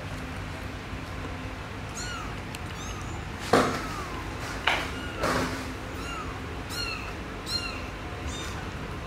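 A young kitten mewing over and over, about eight short high-pitched mews that rise and fall in pitch. A few louder thumps and rustles come in the middle.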